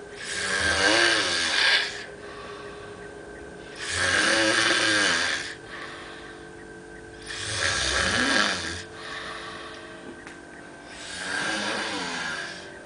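A sleeping person snoring: four loud snores at a steady pace, about three and a half seconds apart, each lasting about a second and a half.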